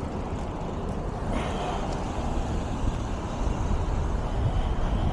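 Steady street traffic noise, a continuous low rumble without distinct events.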